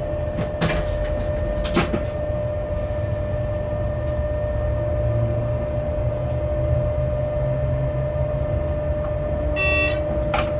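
Electric locomotive heard from inside its cab while moving slowly: a steady low running rumble with a steady whine over it. Two sharp clicks come in the first two seconds, and a brief electronic beep sounds near the end, followed by another click.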